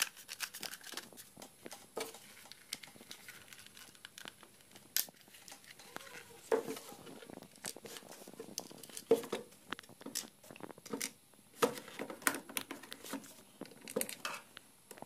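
Handling noise from a plastic heat gun: irregular clicks and knocks of its housing and nozzle being handled, with cloth rubbing and rustling over the body as it is wiped.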